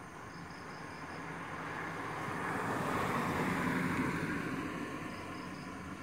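A car driving past on the road: its engine and tyre noise builds as it approaches, is loudest about three to four seconds in, then fades as it moves away.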